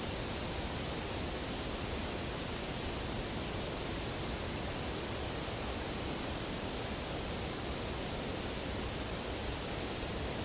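Steady, even hiss with no distinct knock, call or howl in it.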